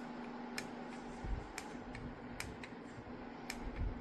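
Lasko T42951 tower fan running with a steady low hum and air noise, broken by irregular sharp clicks, roughly one a second, and a couple of soft low bumps.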